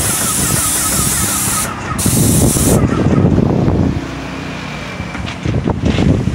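Airless paint sprayer on an extension-pole gun spraying with a loud, steady hiss of atomising paint. The trigger is let go for a moment just under two seconds in, and the spray stops at about three seconds, leaving low rumbling wind noise and a few knocks.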